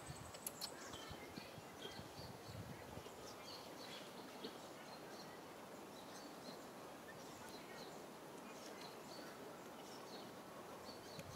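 Quiet outdoor background noise, with small birds giving short, high chirps now and then.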